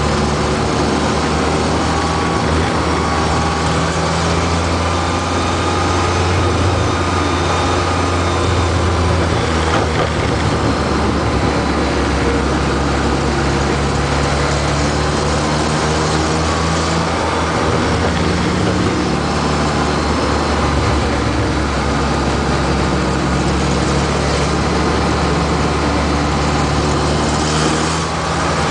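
Race pickup truck's engine heard from inside the cab, running hard and steady at speed in a light-truck feature race. Its pitch shifts a little up and down as it goes.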